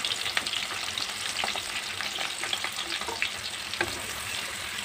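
Sliced onions, bay leaves and green chillies sizzling in hot oil in a wok, with scattered sharp crackles and a wooden spatula stirring them.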